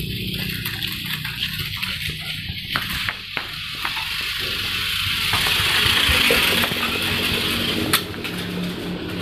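Mini 4WD toy car's small electric motor and gears whirring as it runs along the ground, its wheels rattling on the paving and tiles. The whir grows louder toward a peak about six seconds in, with scattered sharp clicks and one sharp knock near the end.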